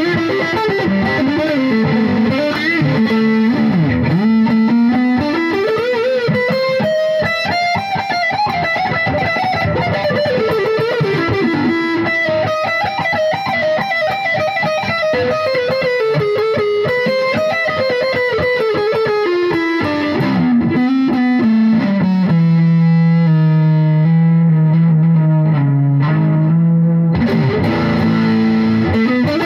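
Electric guitar, a Gibson SG with Bare Knuckle Mule humbuckers, played through a Boss Katana Mk II 100 amp with a distorted tone. It plays a single-note lead line with string bends and vibrato, settles on a held low note, breaks off briefly near the end, then picks up again.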